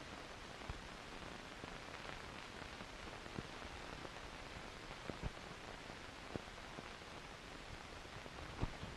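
Steady hiss of an old 1940s film soundtrack, with a few faint, irregular clicks.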